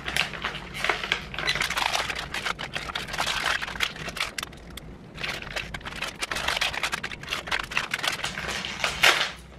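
Plastic snack packet crinkling and crackling as it is worked open by hand, in two spells with a short lull about four seconds in and a brief louder crackle near the end.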